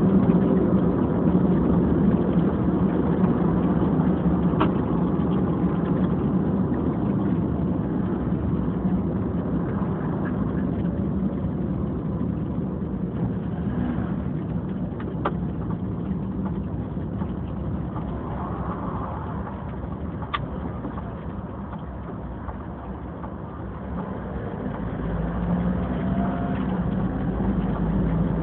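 Car engine and road noise heard inside the cabin of a moving car, picked up by a tablet's built-in microphone, with a steady low hum. It eases off gradually, then grows louder again with a deeper rumble about 24 seconds in, as the car speeds up.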